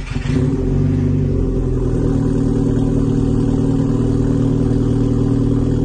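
Volkswagen MK5 GTI's turbocharged 2.0-litre four-cylinder idling steadily through its new turbo-back exhaust (APR downpipe, AWE cat-back), heard from behind the tailpipes.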